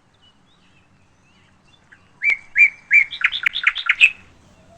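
Bird chirping sound effect: three short, separate chirps, then a quick run of chirps about two seconds in.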